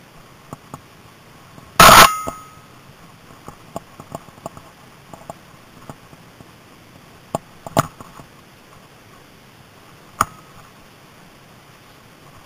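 Mountain bike rattling over rough ground: a steady low rush with scattered clicks and knocks from bumps. A very loud bang comes about two seconds in, and there are sharper knocks about seven and a half and ten seconds in.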